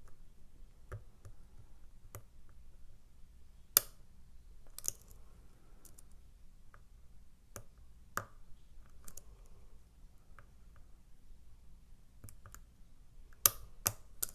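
Light, irregular clicking of picks and a tension tool working the sliders inside an Evva ICS dimple lock, with a few sharper clicks about four seconds in, around eight seconds, and twice near the end.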